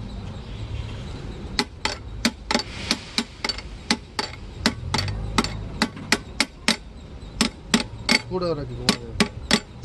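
Hammer tapping on the steel parts of a truck differential carrier: a fast, uneven run of sharp metallic strikes, about three a second, beginning about a second and a half in. The work is done while fitting the crown wheel into its bearing caps.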